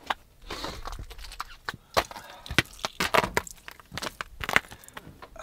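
Boots crunching on packed snow and ice: a string of uneven footsteps, each a short sharp crunch, with a few louder ones through the middle.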